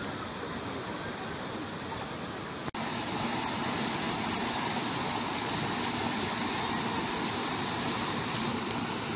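Steady rush of water flowing in a stone canal; about three seconds in it cuts to a louder rush of water pouring over small stepped weirs.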